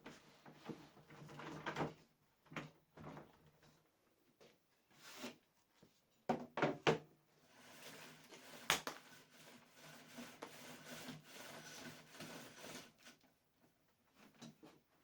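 Scattered clunks, knocks and sliding rubs of a tool platform being handled and moved on the sliders of a homemade table-saw frame, with one sharp click about nine seconds in.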